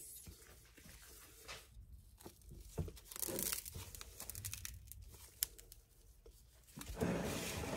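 Dry, crumbly bath bomb mixture being scooped and packed into a metal mold by gloved hands: soft crunching and rustling with scattered light clicks, one sharper click about five seconds in.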